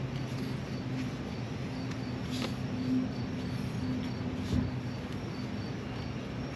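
Two light clicks as a liquid-line filter drier is handled and fitted onto copper tubing, over a steady low hum and a faint high chirp repeating about twice a second.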